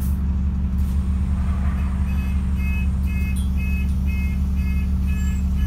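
Double-decker bus engine running with a steady low drone. From about two seconds in, an electronic warning beeper on the bus sounds in short, even beeps about twice a second, about seven times.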